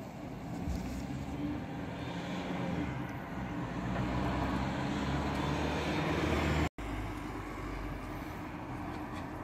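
Street traffic from above: a city bus and cars passing, the rumble building to a peak about six seconds in, breaking off for an instant at an edit, then steady again as another bus and a car come along.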